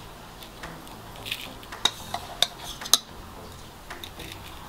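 A metal tablespoon scooping crushed oat flakes out of a blender cup, with about four light clinks of the spoon against the container in the middle.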